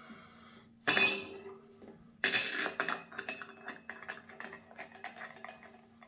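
Chrome sink drain strainer clinking against the sink basin as it is set into the drain outlet. Two sharp clinks, about a second in and again just after two seconds, are followed by lighter ticks and scraping as it is seated.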